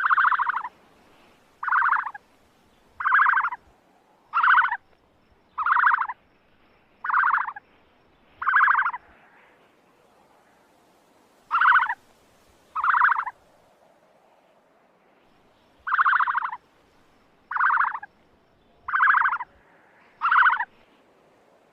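Ostrich giving a series of short, raspy calls, each about half a second long, repeated roughly every second and a half. There is a run of seven, a pause, two more, another pause, then four more.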